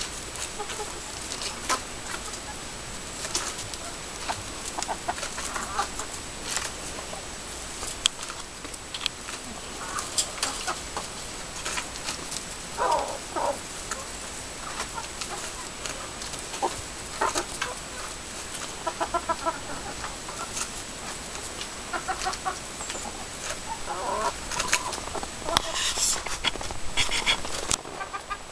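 Flock of domestic hens clucking in short, scattered calls while they peck at a hanging head of lettuce, with frequent sharp clicks of beaks striking the leaves.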